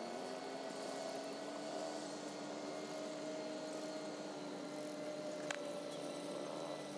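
A faint, steady motor drone holding two tones that drift slightly in pitch, over a light hiss; a single click about five and a half seconds in.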